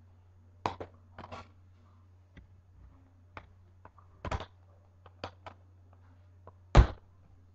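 Scattered clicks and taps of small fingerboard parts and their packaging being handled on a table, the loudest a knock near the end, over a low steady hum.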